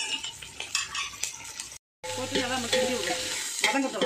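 Sliced onions sizzling in hot ghee and oil in a large aluminium pot, with a metal ladle stirring and scraping against the pot. The sound drops out completely for a moment just before the middle.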